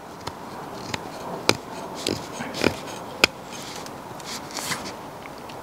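Green River Hunter knife's thin 1095 carbon-steel blade cutting into a stick of green maple to carve a notch: quiet scraping with irregular small sharp clicks as the blade pushes into the wood.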